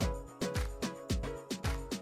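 Background music with a steady drum beat: kick drum and snare under pitched instrument notes.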